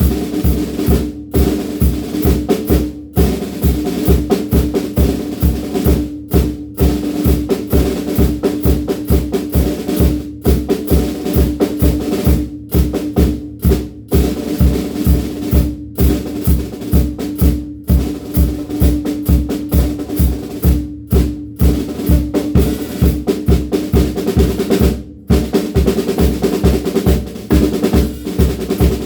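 DW Frequent Flyer drum kit being played: a steady run of bass drum hits under snare strokes and rolls, with a few brief breaks between phrases.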